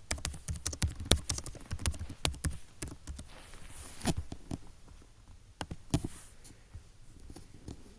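Typing on a computer keyboard: a quick run of keystrokes for about three seconds, then a few scattered key clicks.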